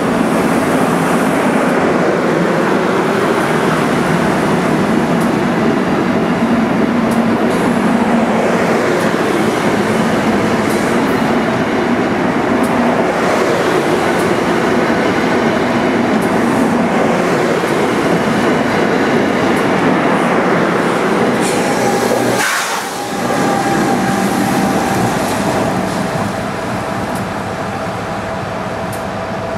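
Single-level commuter rail coaches rolling past close by: a steady rumble and clatter of wheels on the rails. About three-quarters of the way through the sound drops off briefly, then carries on quieter.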